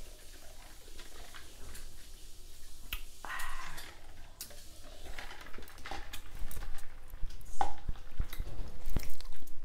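Scattered light clicks and knocks of tableware being handled, a plastic cup and takeout dishes and utensils, coming more often in the last few seconds.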